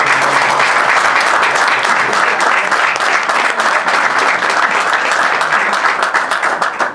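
Audience applauding, many hands clapping at once in a dense, steady patter that falls away at the very end.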